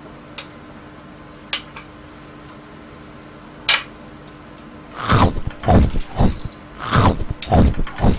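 Near quiet with a low steady hum and a few isolated clicks. In the last three seconds come about six loud whooshes in quick succession, each falling in pitch.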